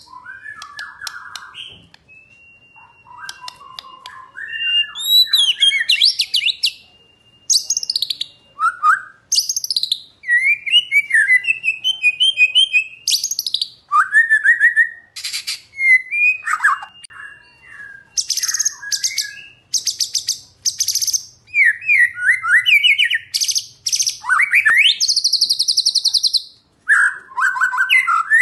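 White-rumped shama singing a long, varied song: slurred whistles, a few long held notes and fast high trills, in phrases broken by short pauses.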